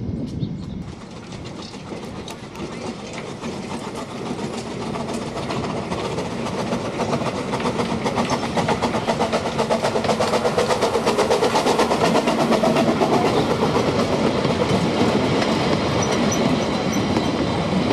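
Miniature steam train running, a fast rhythmic clatter that grows steadily louder over the first several seconds and stays strong.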